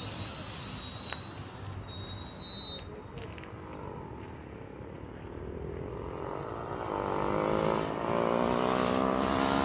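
Street traffic: a thin, steady high whine stops about a quarter of the way in, with a brief louder noise as it ends. Over the last three seconds a motor vehicle engine grows louder, its pitch climbing slightly as it comes closer.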